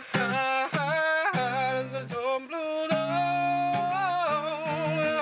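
Country ballad sung over acoustic guitar, with a long, wavering held note in the middle.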